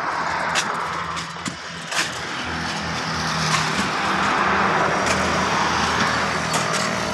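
Pickaxes and shovels knocking and scraping into hard dry soil and stones in scattered sharp strikes, over a steady motor-vehicle noise with a low engine hum that swells after a couple of seconds.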